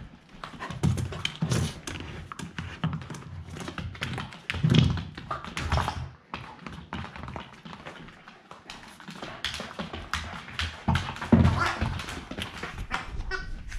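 Fox terrier puppy chasing and batting a Wobble Wag Giggle ball across a hardwood floor: its claws tap on the boards and the ball knocks and thuds as it is pushed about. A short warble, likely the ball's giggle noise, sounds near the end.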